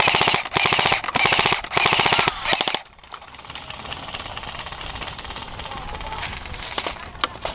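Airsoft electric rifle (AEG) firing several rapid full-auto bursts, a fast even clatter of shots with short pauses between bursts. It stops about three seconds in, leaving only quieter steady background noise.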